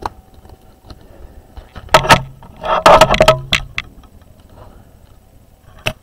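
Plastic clicks and knocks of a Lenovo 100e Chromebook being handled as its keyboard deck is pressed into place and the laptop turned over and opened, with a loud cluster of knocks about two to three and a half seconds in.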